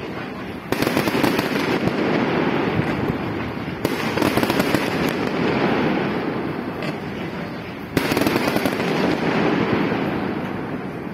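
Fireworks display going off in three volleys about three to four seconds apart. Each volley starts suddenly and breaks into dense crackling that slowly fades.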